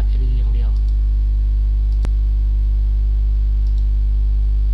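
Steady electrical mains hum, a low buzz with a stack of overtones, running under the recording. A single sharp click comes about two seconds in.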